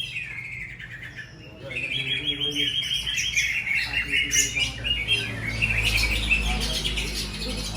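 Several caged songbirds singing together, a dense, rapid high twittering that grows fuller about two seconds in.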